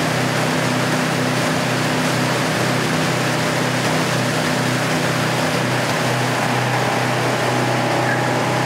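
Motorboat engine running at a steady hum under the continuous rush of churning wake water and spray.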